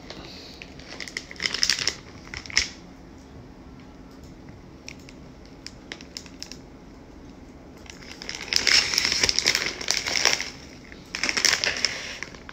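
Plastic snack bag crinkling as it is gripped and turned over in the hand, in bursts: two short ones near the start, then a longer stretch about two-thirds of the way through and another near the end.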